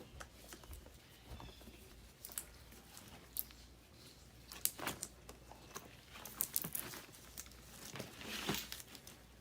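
Scattered light clicks, taps and rustling of hands handling a furnace blower motor and its mounting bracket with rubber mounting bands.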